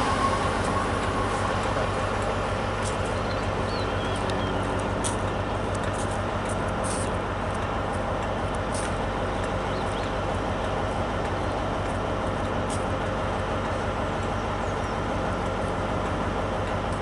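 Great Western Railway Intercity Express Trains running on their underfloor diesel engines: a steady low rumble and hum that eases off over the first couple of seconds, then holds level, with a few faint clicks.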